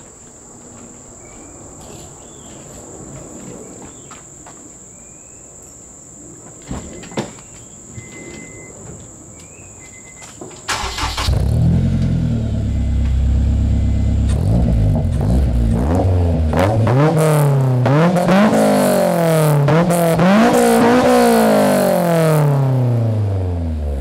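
Honda S2000's four-cylinder engine cranking and catching about eleven seconds in, then settling to a steady fast idle. It is then revved several times in quick blips, pitch rising and falling, before dropping back toward idle.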